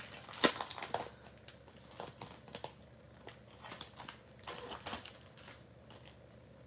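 Clear plastic product sleeve crinkling and rustling as it is handled and opened, in scattered short crackles, the loudest about half a second in.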